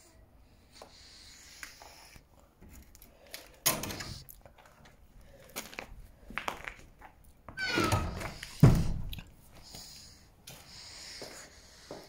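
Scattered knocks and bumps, with a short falling squeak about eight seconds in and a heavy thud just after it, the loudest sound.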